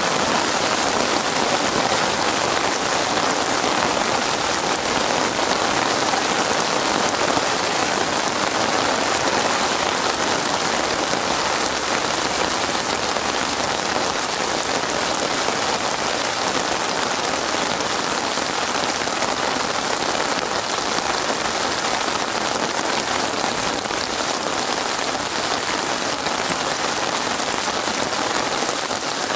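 Heavy rain falling steadily: a dense, even hiss of countless drops striking water, without change or let-up.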